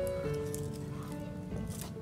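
Background music: a melody of held notes changing every half second or so, with a couple of light clicks.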